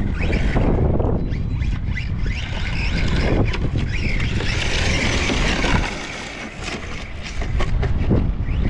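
Wind buffeting the microphone over an electric Cen Racing Ford Puma rally RC car driving on loose dirt and gravel: its motor whines and its tyres scatter stones, loudest in the middle.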